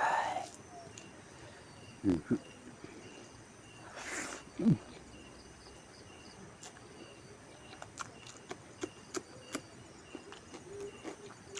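An insect, cricket-like, chirping steadily at an even pace of a couple of chirps a second. Two short louder sounds come about two seconds and about four and a half seconds in, and a series of sharp clicks follows later.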